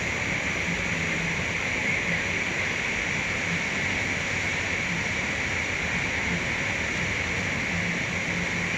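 Steady rushing noise, even throughout, with a faint low hum under it.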